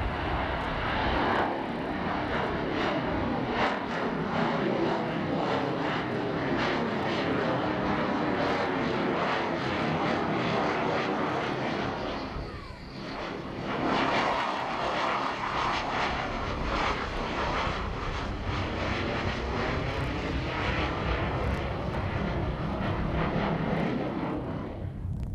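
Grumman F-14 Tomcat's jet engines roaring as it flies its display overhead, a dense rushing roar with a slowly sweeping, phasing tone. The roar dips briefly about halfway through, then swells back up.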